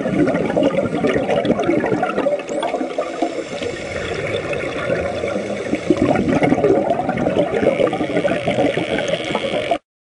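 Water splashing and churning, cutting off suddenly near the end.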